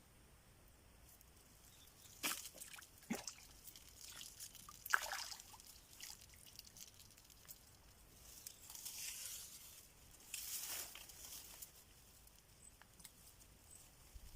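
Faint, scattered water sounds and rustling: a few sharp splashes or taps in the first five seconds, then two longer swishing rustles.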